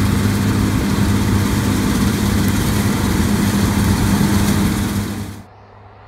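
John Deere combine harvester running close by as it cuts field beans: a steady low engine hum under a loud, even rush of threshing noise. It cuts off abruptly about five and a half seconds in.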